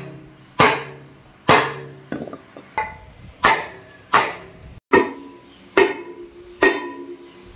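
A wooden block struck hard and repeatedly against an electric bike's rear wheel, about eight heavy knocks at a steady pace of just over one a second, each with a short ringing tail.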